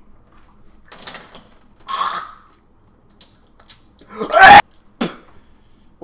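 A man gagging and retching on a mouthful of a revolting blended shake: four short throaty heaves, the loudest and longest about four seconds in.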